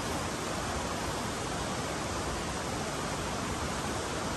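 A steady, even rushing hiss with no separate sounds in it and no change in level.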